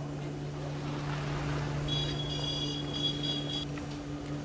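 Outdoor street ambience: a steady low hum under a soft noisy wash, with a bright, high ringing tone, broken by a few short gaps, starting about two seconds in and lasting about a second and a half.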